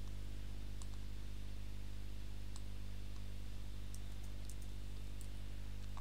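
Several faint, sharp clicks of a computer mouse and keyboard, more of them in the second half, over a steady low hum.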